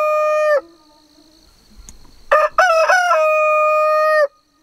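A rooster crowing twice: the long held end of one crow, then a full crow starting about two seconds in, a few short broken notes followed by a long steady held note.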